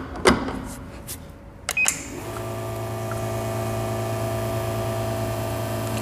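A couple of sharp clacks as the portafilter and cup are set in place, then about two seconds in the La Marzocco espresso machine's pump starts and hums steadily as the shot begins brewing.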